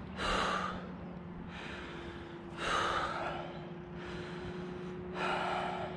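A man breathing deeply and slowly: three loud breaths about two and a half seconds apart, with quieter breaths between. A BASE jumper steadying his breathing at the exit point just before jumping.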